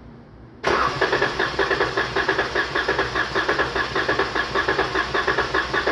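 Dodge Charger's 3.6-litre V6 cranked over by its starter for a compression test on cylinder 6, beginning abruptly about half a second in and pulsing in a quick even rhythm as the gauge climbs.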